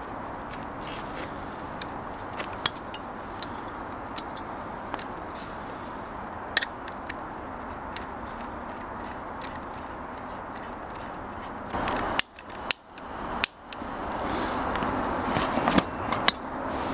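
Scattered small clicks and handling noises from a Thermacell mosquito repeller being set up and switched on, over a steady background hiss. The sound briefly drops out twice about twelve seconds in, and the handling noise grows louder near the end.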